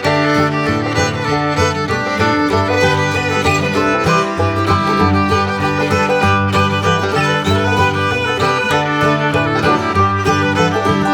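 Background music: a lively tune led by fiddle over plucked strings, with a steady beat.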